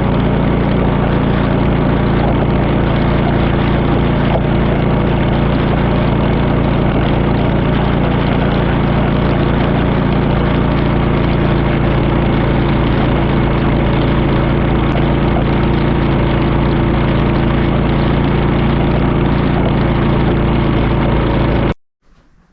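Honda HSS928A tracked snowblower's engine running steadily at a constant speed. It cuts off suddenly near the end.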